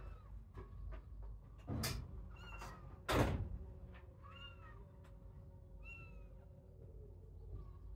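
Young kittens mewing: several short, high mews spaced a second or two apart. Two thumps fall about two and three seconds in, the second the loudest sound.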